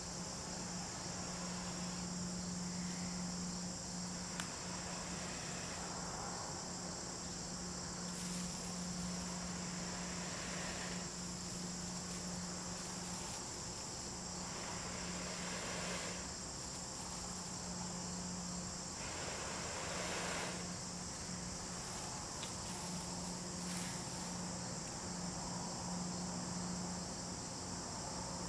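Crickets chirring steadily over a steady low hum, and several soft breathy rushes a few seconds apart as a person blows into a dry-grass tinder bundle to bring a char-cloth ember to flame.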